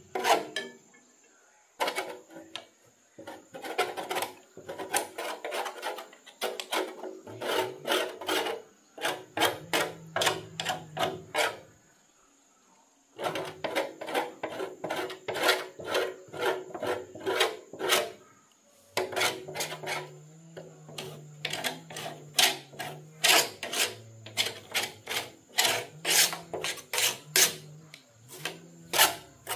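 Stiff paintbrush scrubbing caked rust and dirt off the inside of a banana chopper's steel housing. It goes in quick rasping strokes, about three a second, in runs with short pauses.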